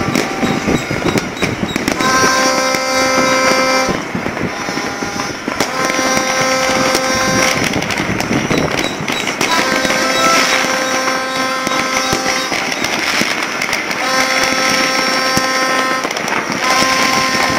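Fireworks and firecrackers going off all over a city in a continuous crackle of pops and bangs. A horn sounds in steady blasts of about two seconds, roughly every four seconds.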